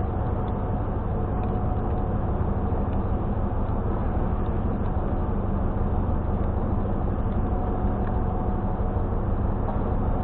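Steady low engine drone with a constant hum, typical of a car ferry's engines running under way. It does not change in level or pitch.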